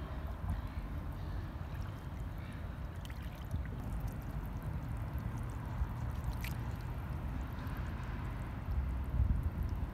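Shallow river water lapping and sloshing around a large mulloway held at the surface for release, over a steady low rumble, with a few faint clicks.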